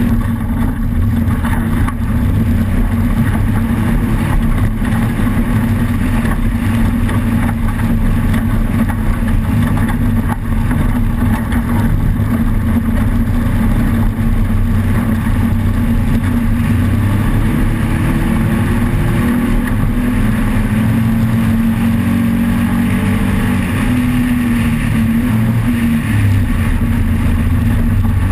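Off-road race vehicle's engine running hard and steadily over a constant rough noise, its pitch rising and falling a few times in the second half.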